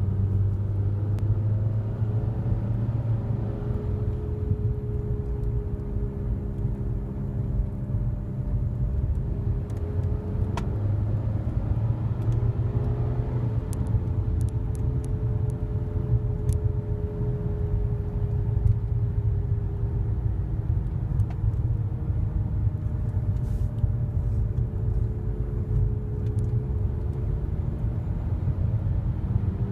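Airplane-like drone from a moving 2008 Nissan Altima: a stack of tones over a steady low road rumble, slowly rising and falling in pitch. The owner says it gets louder when accelerating and softens when slowing down, and believes it is a CVT transmission problem.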